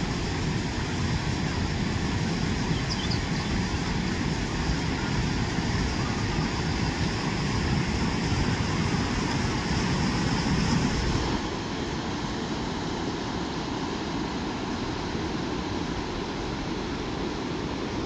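Steady rushing noise of the fast, turbulent River Swat, dropping somewhat in level about eleven seconds in.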